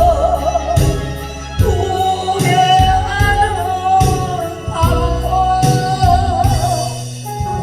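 Korean trot song played live: a melody in long wavering notes over a backing track with a steady bass-drum beat.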